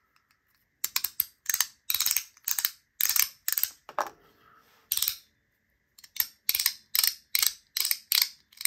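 3D-printed SnapBack haptic slider fidgets being snapped back and forth: a run of sharp plastic clicks, about three a second, with a short pause in the middle.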